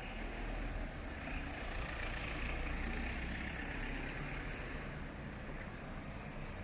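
A motor vehicle passing by on the street, its engine and tyre noise swelling over the first few seconds and then slowly fading.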